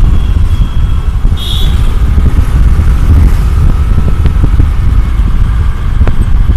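Riding on a motorbike: heavy wind rushing and buffeting over the microphone, with the bike's engine running underneath. There is a short high-pitched sound about a second and a half in.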